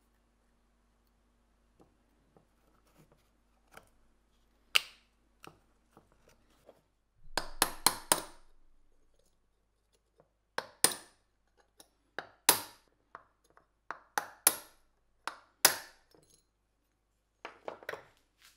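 Tools and small metal parts being handled on a workbench: about a dozen separate sharp knocks and clinks, each with a short ring, and a brief rattling cluster about seven to eight seconds in.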